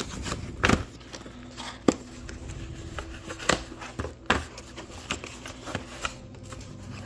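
Alarm clock packaging being handled and unpacked: irregular sharp clicks and taps with light rustling.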